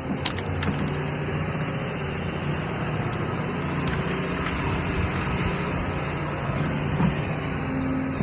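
Excavator engine running steadily while branches crack and snap, the sharpest cracks in the first second.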